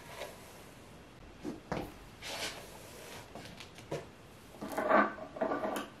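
Handling sounds: a few light knocks and a brief rustle, then a louder clatter of objects being picked up and put down about five seconds in.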